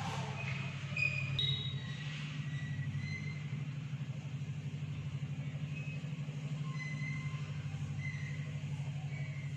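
A steady low hum with a fast, even pulsing, like a motor or fan running, under faint scratching of chalk on a blackboard as a drawing is made. Short high chirps come and go over it.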